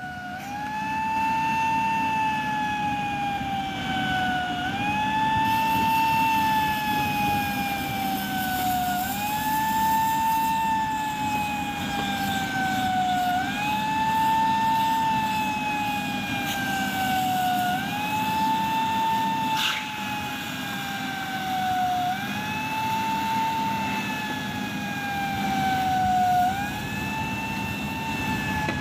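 A siren wailing in a repeating cycle: each cycle rises quickly, then falls slowly, about every four and a half seconds, over a steady low engine hum.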